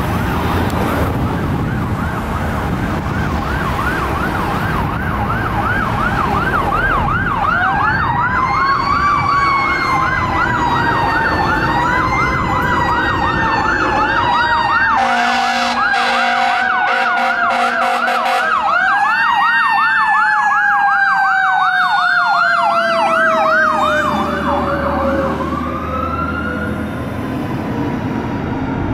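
Fire engine responding with its electronic siren on a fast rising-and-falling yelp. Over it, a mechanical siren winds up several times and then slowly winds down near the end. Loud air-horn blasts come about halfway through, while the truck's engine and tyres pass by and move away.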